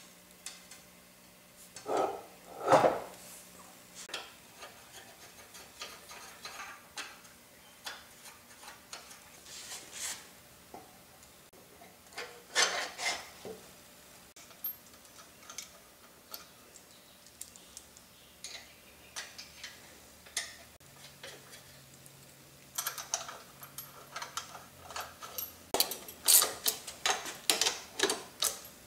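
Heavy metal motor parts knocking together as the stator and end bell are fitted, loudest about two seconds in and again around thirteen seconds. Near the end, a socket ratchet clicks rapidly in short runs as the end-bell bolts are tightened.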